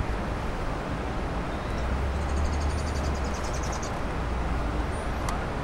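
Steady outdoor rumble and hiss, the low rumble growing stronger for a couple of seconds in the middle, with a fast, high, evenly repeated trill about two seconds in that lasts some two seconds.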